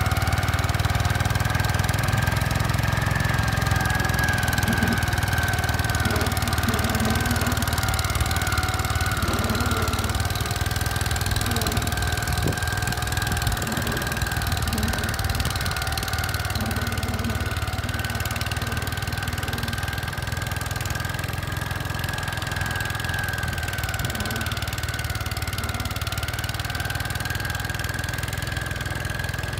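Gravely 5665 tractor's single-cylinder Kohler engine running steadily while driving an MA210 snow cannon, with a high whine that drifts slightly in pitch above the engine note.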